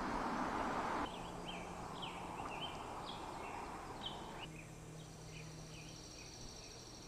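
Faint outdoor ambience of small birds chirping in short, quick calls. A rushing background noise cuts off abruptly about a second in, and a high, thin steady buzz comes in during the second half.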